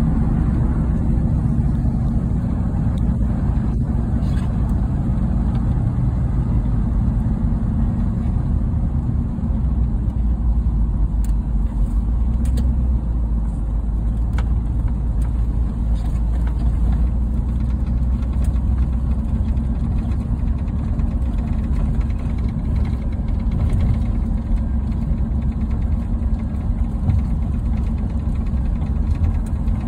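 Old Dodge pickup truck's engine running steadily as the truck drives, heard from inside the cab as a low, even rumble.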